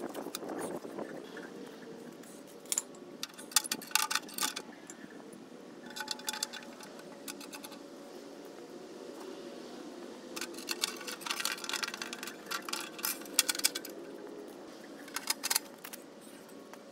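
Metal clinks and rattles from the parts of a small restored cast-iron wood stove being handled and fitted, in several short clusters, over a faint steady hum.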